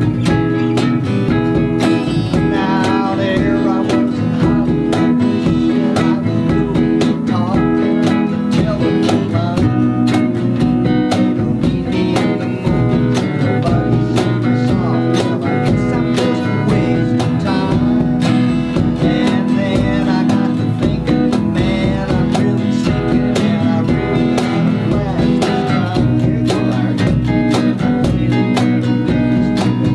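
A small acoustic band playing a country song: acoustic guitars strumming with keyboard over a steady beat.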